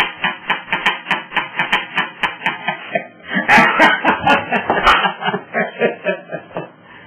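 A man laughing hard and long, a fast run of loud 'ha' bursts that trails off near the end.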